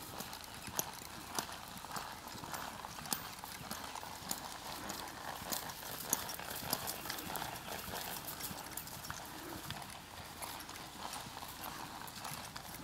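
Hoofbeats of a ridden horse walking on dry dirt: an irregular run of soft thuds and sharp clicks over a steady outdoor hiss.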